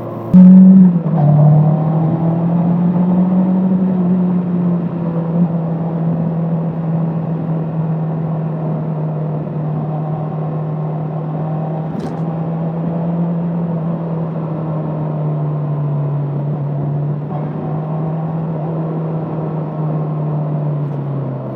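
Bristol Venturi 500 motorcycle engine while riding: it revs up sharply about half a second in, then settles into a steady drone at an even speed. A single sharp click is heard about halfway through.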